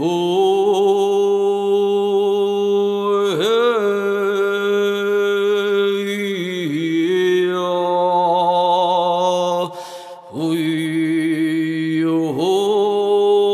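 A person's voice chanting long, held tones, mantra-like, each note sustained for several seconds with brief breaks between. There is a short pause for breath about ten seconds in.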